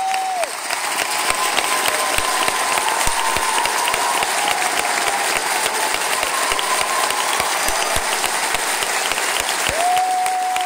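Theatre audience applauding a choir, with dense, fast clapping. A single long steady whistle sounds over the clapping at the start and again near the end.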